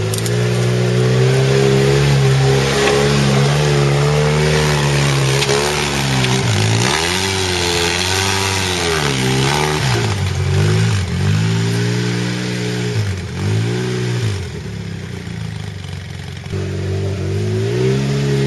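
2008 Polaris RZR side-by-side's engine running at steady high revs, then falling and climbing in revs several times as the machine works through deep muddy ruts. It goes quieter for a couple of seconds near the end before picking back up to steady running.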